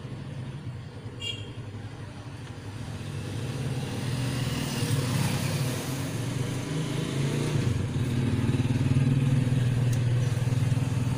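Low, steady engine rumble of a motor vehicle, growing louder from about four seconds in.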